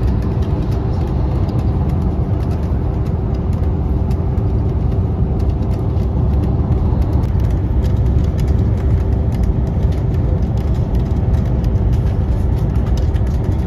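Coach cabin noise at motorway speed: a steady drone of the engine and tyres on the road, with a constant hum running under it.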